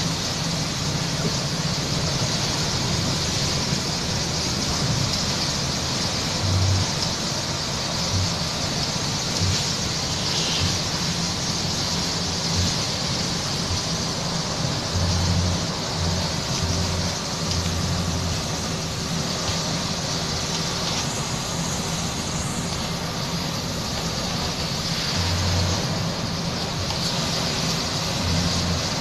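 Bus engine running and tyres hissing on a wet road, a steady mix of low engine hum and high road spray heard from inside the cabin, with occasional low thuds.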